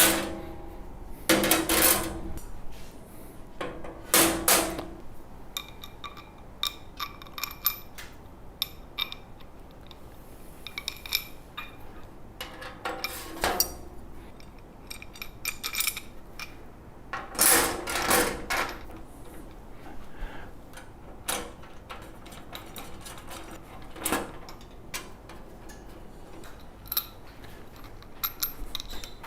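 Metal hardware clinking and knocking as handle rods and screws are handled and fitted onto a compost tumbler: irregular sharp clinks scattered throughout, a few of them louder with a brief metallic ring.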